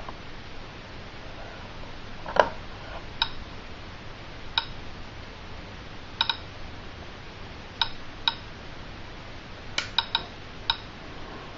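DRSB-01 radiation survey meter clicking at random, irregular intervals, about a dozen sharp clicks, some in quick pairs and triplets near the end: radiation counts from the radium luminous paint on WWII German aircraft instrument hands and pointers. One louder, duller knock comes about two and a half seconds in.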